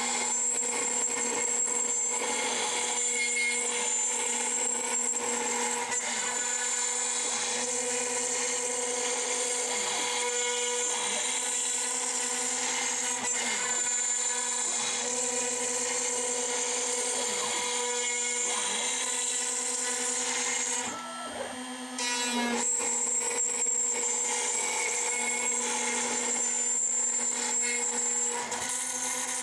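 CNC router spindle whining steadily while a tapered ballnose bit mills a pocket in a block of Osage orange, with the rasp of the cut over the whine. About 21 s in it briefly goes quieter for about a second, then the cutting resumes.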